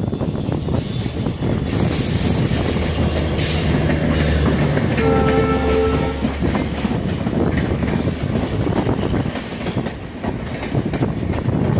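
Indian Railways express train rushing past close by, coaches rumbling and wheels clattering over the rail joints. About five seconds in, a locomotive horn sounds one blast of just over a second.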